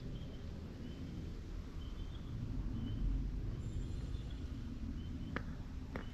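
Steady low wind rumble on the microphone, with faint short high chirps repeating every second or so and a couple of sharp clicks near the end.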